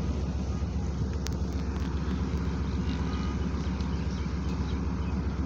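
Diesel-electric locomotive engine running, a steady low drone.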